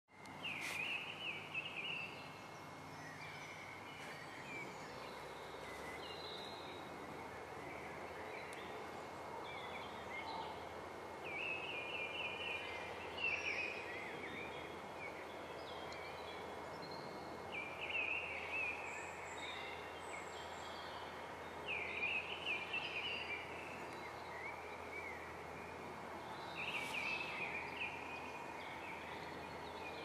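A bird singing short chirping phrases, repeated about every five seconds over a steady outdoor background hiss.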